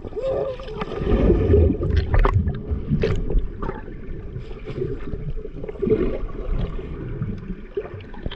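Water heard through a submerged camera's microphone: a muffled rumbling and bubbling as a swimmer dives, loudest in the first couple of seconds, with scattered sharp clicks.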